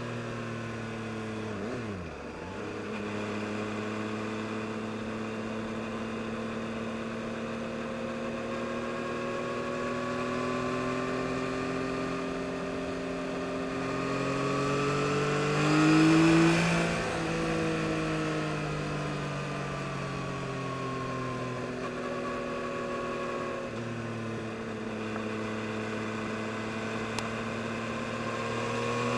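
2022 Yamaha MT-09 SP's 890 cc inline-three engine under way. Its pitch drops off at first and then holds steady. The revs climb to the loudest point about halfway, ease off, and climb again near the end.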